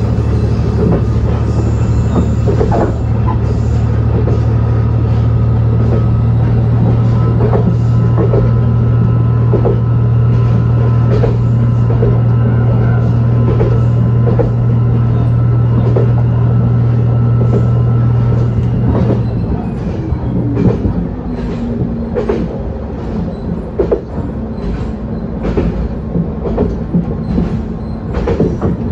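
Moka Railway diesel railcar running, heard from inside the car: a steady low engine drone with wheels clicking over rail joints. About two-thirds of the way in, the drone falls away and the car runs on more quietly on a lower note.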